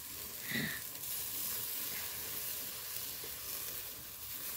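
Meat sizzling steadily on a charcoal grill over hot coals as the pieces are turned with metal tongs.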